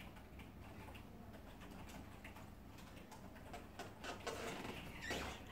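Faint, irregular clicking of typing on a computer keyboard, with a brief louder burst of noise near the end.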